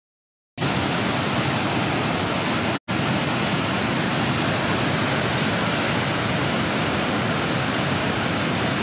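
Muddy flash-flood water rushing and churning over a weir: a steady, even rush of fast water. It starts about half a second in and breaks off for an instant near three seconds.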